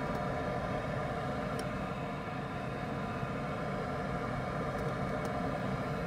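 Gas furnace draft inducer motor running at speed after a call for heat, a steady hum with a whine, and a few faint ticks.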